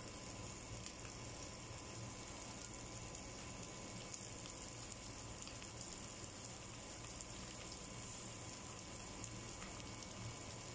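Ginger, garlic and onions sautéing in oil in a steel pot: a faint, steady sizzle with small crackles.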